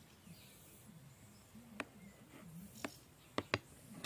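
Kitchen knife cutting through a soft pancake cake on a plate: faint, with four short sharp clicks from about two seconds in.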